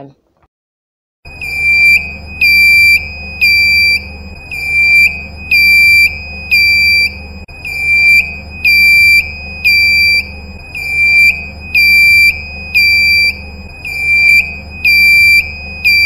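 Ship's bridge navigation alarm: a high-pitched electronic tone that starts about a second in and pulses steadily about once a second, with a low hum underneath.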